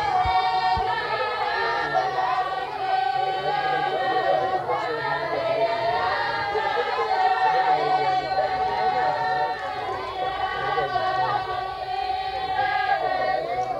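A large group of women singing a mayra wedding folk song together. The song has long held notes and no drum beat.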